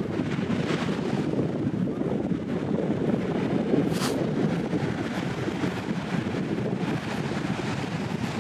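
Wind buffeting the microphone over the steady rush of surf on a sandy beach, with a brief hiss about four seconds in.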